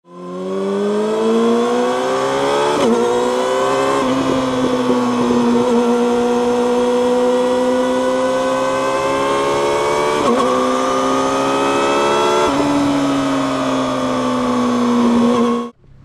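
Yamaha YZF-R6 inline-four engine through an Akrapovic megaphone slip-on exhaust, ridden under throttle. Its pitch climbs, broken by short dips about four times, and it cuts off suddenly near the end.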